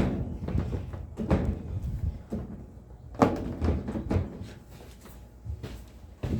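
Knocks and rattles of a washing machine's top panel being handled and pushed to seat it, with a few sharper bangs about a second in, around three seconds in and near the end.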